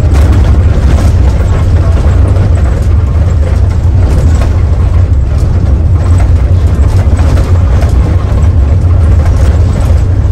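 Mercedes-Benz OH 1521 bus running on the road, heard from on board: a loud, steady low drone from its diesel engine, with scattered small knocks and rattles.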